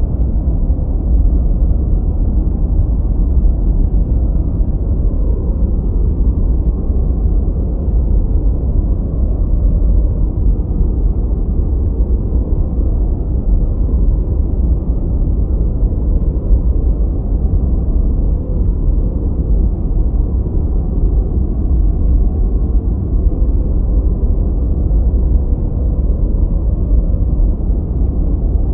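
Continuous deep, muffled rushing noise that holds steady without any change: a 'white noise' relaxation track, weighted toward the low end like brown noise.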